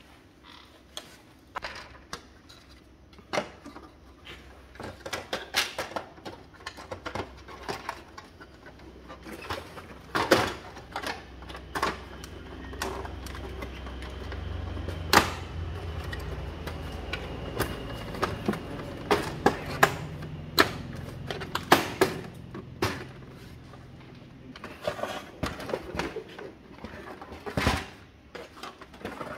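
Plastic clicks, knocks and rattles of a Brother HL-L2321D laser printer's casing and covers being handled and fitted back together, irregular and sharp, with a low rumble swelling in the middle stretch.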